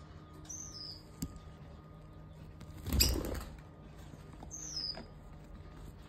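Lovebird chirping: two short high chirps, each falling in pitch, about half a second in and again near five seconds. About three seconds in there is a loud, brief rustling thump.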